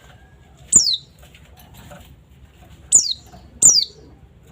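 Three sharp, high bird calls, each a quick downward-sweeping note starting with a click: one under a second in, then two close together near the end.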